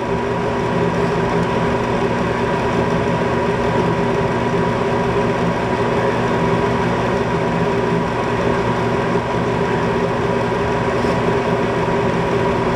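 Bryant 398AAV condensing gas furnace running, a steady mechanical hum of its motors with a few constant tones.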